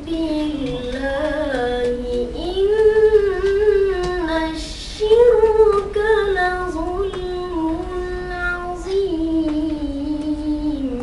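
A boy qari chanting Quranic verses melodically, his voice drawn out in long held notes that glide and waver up and down. Short breaks come about two and a half seconds in and again near five seconds, and the last long phrase sinks slowly in pitch until it ends near the end.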